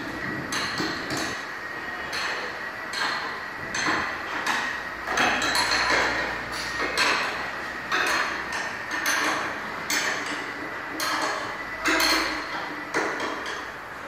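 Hammer blows on car body sheet metal, panel beating: a long run of irregular metallic strikes, each ringing briefly.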